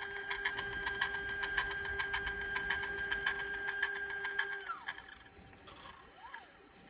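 iOptron CEM120 equatorial telescope mount's drive motor running with a steady whine and a rapid, regular clicking. This is the strange noise the owner reports, still there after a factory repair. About four and a half seconds in, the whine winds down in pitch and the motor stops.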